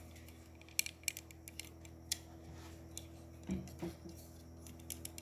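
Plastic Lego bricks clicking faintly and irregularly as they are handled and pressed together. A brief murmur of voice comes about three and a half seconds in.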